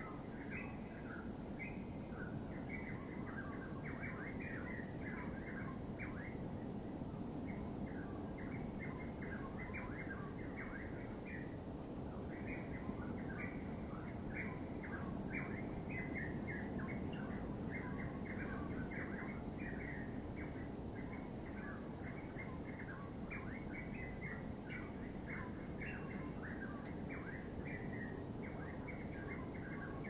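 A flock of birds chattering in many short, overlapping chirps over a steady low wash of distant waves breaking on rock, with a thin steady high-pitched tone throughout.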